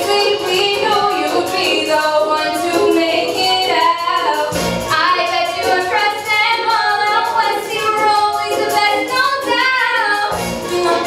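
Women singing a musical-theatre song with accompaniment that keeps a steady beat.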